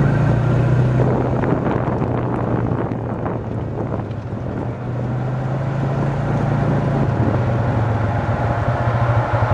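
Single-cylinder engine of a Polaris Sportsman 550 ATV running steadily at a low crawl, its note easing slightly in the middle, with the tires crunching and clattering over rocks and snow. The steady slow pace is the Active Descent Control engine-braking the machine down a steep, loose hill.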